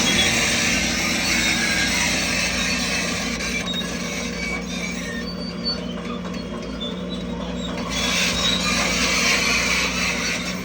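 Heavy earthmoving machinery's diesel engine running steadily under work, with a constant low hum and clatter and scattered brief high-pitched squeaks over it.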